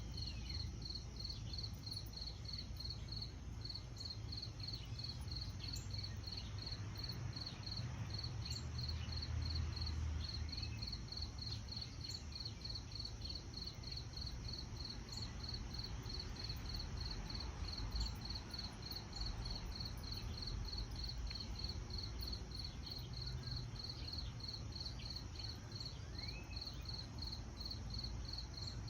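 A cricket chirping steadily in an even, unbroken rhythm of high chirps, a few every second, over a low steady background rumble.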